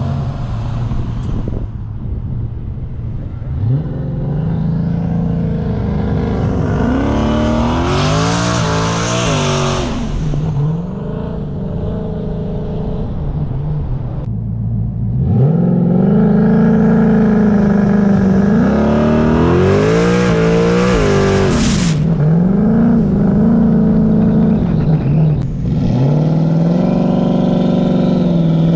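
Performance car engine revving hard under acceleration, its pitch climbing and dropping in several steps as it shifts. It lets off briefly around the middle, climbs again in another run of shifts, then eases into shorter revs near the end.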